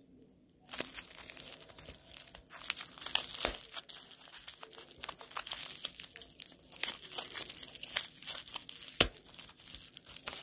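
Bubble wrap crinkling and crackling in the hands as a small item is unwrapped. There are many small clicks and a few sharper snaps, the loudest near the end.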